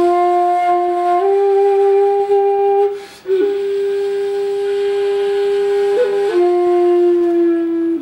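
Solo shakuhachi (Japanese end-blown bamboo flute) playing slow, long held notes. The pitch steps up a little about a second in, breaks off for a short breath about three seconds in, and steps back down near the end.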